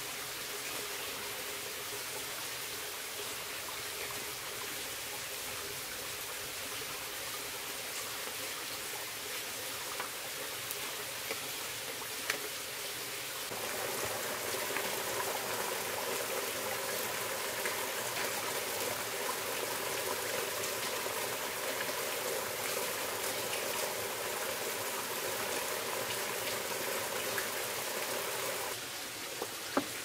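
Steady rush of water, rain and runoff in the jungle, a little louder from about halfway through until just before the end, with a few faint ticks.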